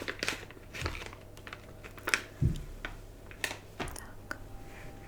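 Irregular soft clicks and sticky taps of oiled hands worked close to the microphone, with a low thump about two and a half seconds in.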